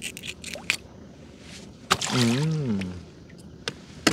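Wet squishing and dripping with scattered sharp clicks as caught fish and fishing line are handled. About two seconds in there is a short hummed voice that rises and falls, and near the end a loud clatter of clicks.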